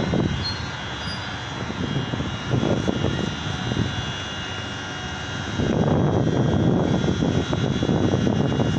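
E 68 005 electric train running by with a steady whine over a rumble that grows louder about five and a half seconds in.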